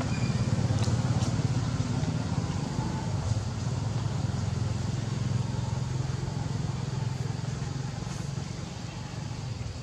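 A motor engine running steadily with a low hum, easing off somewhat over the last couple of seconds.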